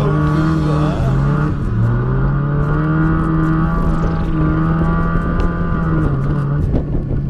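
Mazda MX-5's 1.8-litre four-cylinder engine held at high revs while drifting, heard from inside the open-top cabin. The revs stay fairly steady and dip briefly a few times.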